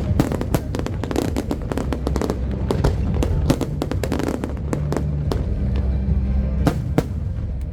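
Fireworks bursting and crackling in rapid succession, densest over the first three seconds and thinning to scattered bangs after, over music with steady low bass notes.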